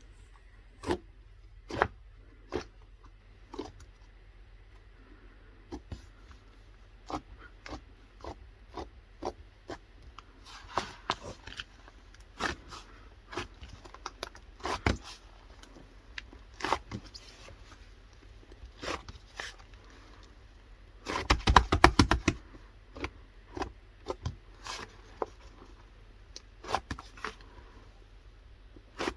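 Slime being handled and pressed by hand, giving irregular sticky pops and clicks. A little over two-thirds through, a quick run of rapid crackling pops is the loudest part.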